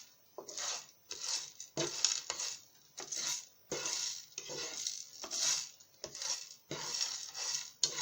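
Whole spices (cloves, cardamom, black pepper, broken cinnamon and nutmeg) roasting on low heat in a flat pan, stirred with a utensil that scrapes across the pan in repeated strokes, roughly one every two-thirds of a second.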